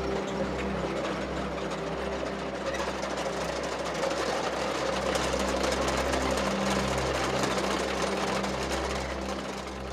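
A row of Buddhist prayer wheels being spun by hand, the drums rattling and rumbling on their spindles in a dense run of small clicks that stops near the end.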